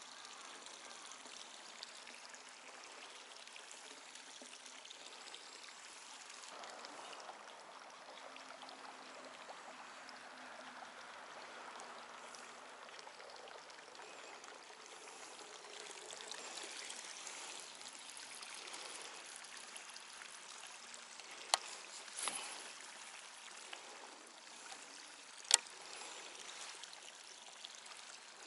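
Steady sound of running water, trickling and pouring. Three sharp clicks or knocks come in the last third, the last one the loudest.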